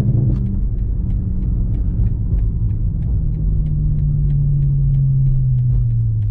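BMW M5 Competition's twin-turbo 4.4-litre V8 running at low revs as the car cruises, a steady low rumble whose note sinks slowly through the second half as the revs fall.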